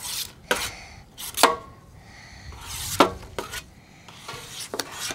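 Metal spoon scraping and knocking against a stainless steel pan while stirring thick slime full of foam beads: a series of separate clinks and scrapes, the loudest about a second and a half in and at three seconds.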